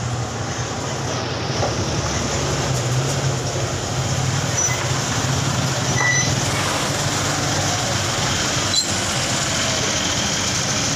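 A steady engine running nearby, a low hum under a constant hiss, with one sharp click near the end.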